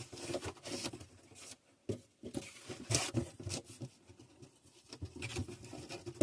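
Packaging being handled while unpacking an inverter: irregular rustling, scraping and light knocks, with a short pause about two seconds in.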